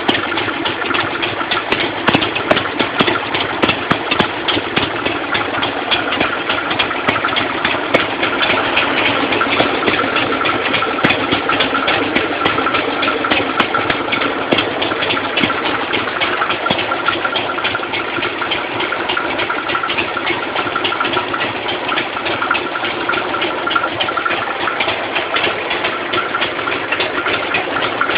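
Harley-Davidson Sportster 883's air-cooled V-twin engine running steadily at idle, with a fast, even pulse of firing strokes.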